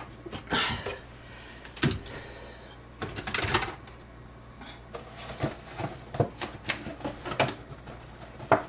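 Irregular clicks, knocks and light rattles of hands working on the plumbing and handling things in the cabinet under a kitchen sink, with a short rustle or hiss about three seconds in.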